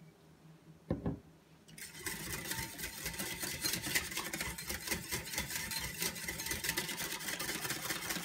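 A single knock about a second in. From about two seconds in, a metal wire balloon whisk beats a thin egg-and-oil batter in a ceramic bowl, with fast, steady clicking and scraping of the wires against the bowl.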